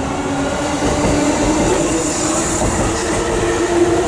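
Keiyo Line E233 series electric commuter train departing, its cars rolling past close by with steady running and rail noise.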